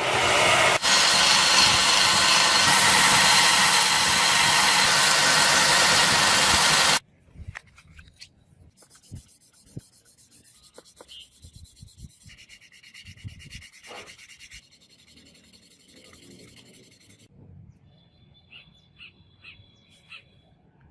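Steel blade being sanded with a power tool: a loud, steady abrasive rasp for about seven seconds that cuts off suddenly, followed by faint clicks and taps of handling.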